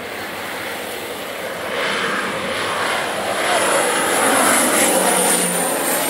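Small twin-engine propeller airliner passing low overhead on its landing approach: engine and propeller noise that builds to a peak about four to five seconds in, with a thin high whine that slowly drops in pitch as it goes over.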